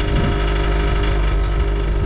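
2009 Subaru Outback's 2.5-litre flat-four running steadily and loudly at a cold-start high idle through a new stainless steel cat-back exhaust. The owner takes the noisy cold start for the engine control module adjusting to the new exhaust's different back pressure and flow.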